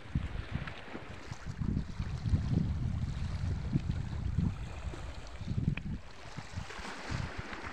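Wind buffeting the microphone: irregular low rumbles over a faint steady hiss.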